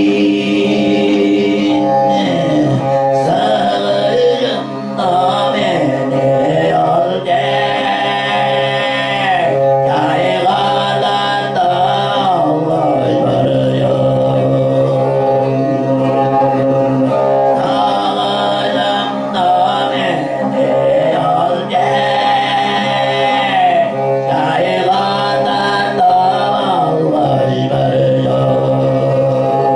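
Tuvan throat singing (khoomei): a man's voice holds a steady low drone while a melody of overtones glides and steps above it, accompanied by a bowed Tuvan fiddle.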